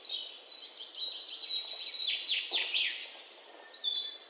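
Birds chirping and twittering, with a few quick downward-sweeping calls a little past the middle.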